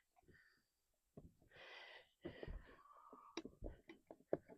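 Quiet working sounds: a few light clicks and knocks from outboard parts and tools being handled, with a couple of dull thuds and a breathy exhale about a second and a half in.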